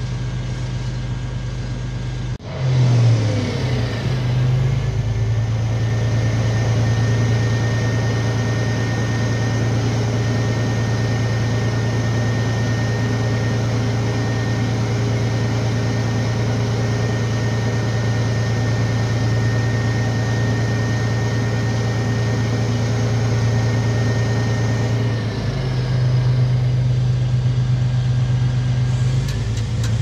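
Boom truck's diesel engine, revved up to drive the crane, running steadily under load with a steady high whine. It speeds up sharply about two seconds in and drops back toward idle near the end.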